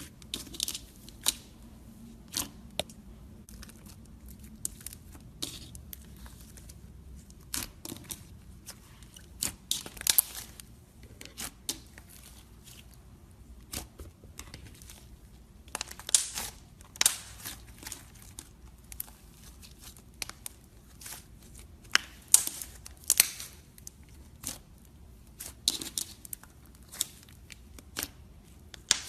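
Slime being worked by hand, making irregular sticky crackles and pops, some short and sharp and a few longer and hissy.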